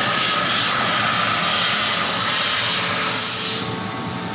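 CNC fiber laser cutting machine at work on sheet metal: a loud, steady hiss and rush, with its upper hiss falling away near the end.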